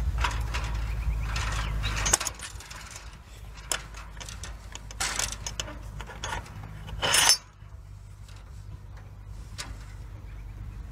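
Metal barrel-bolt latch on a wooden gate being worked by hand: scattered clicks and scrapes, with one louder scraping rattle about seven seconds in. A low rumble runs under the first two seconds.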